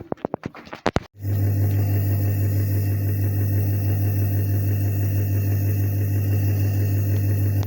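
A few sharp clicks, then about a second in a loud, steady machine hum with a deep buzz starts suddenly, holds an even level, and cuts off abruptly at the end.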